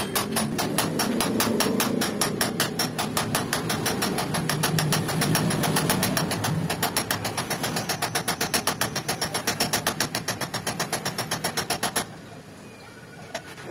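Hand hammer beating metal on metal in quick, even blows, about five a second, driving a brake sleeve into a motorcycle's rear drum hub. The blows stop for about a second near the end, then start again.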